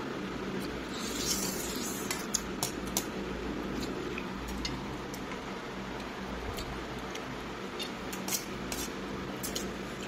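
Someone eating from a bowl: scattered light clicks of a utensil against the dish over a steady low background hum.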